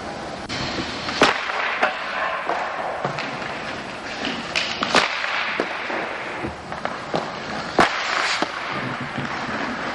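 Ice hockey slap shots: three loud cracks of the stick striking the ice and puck, about three seconds apart, with fainter knocks between them.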